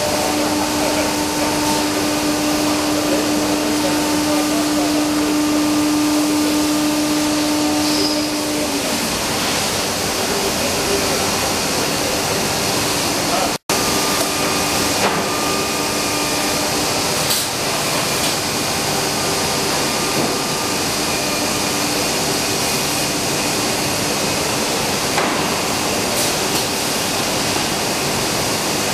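HOMAG CNC woodworking machining center running: a steady rushing whir of the machine with a steady hum that stops about eight seconds in, then fainter high steady tones over the same rushing noise.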